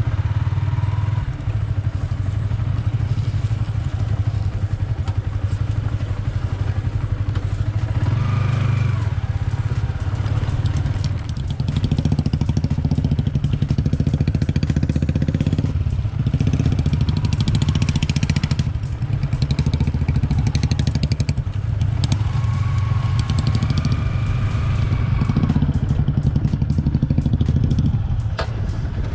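Single-cylinder motorcycle engine running at low revs while riding over rough off-road ground, with many short clicks and knocks over the engine. The engine gets a little louder about twelve seconds in.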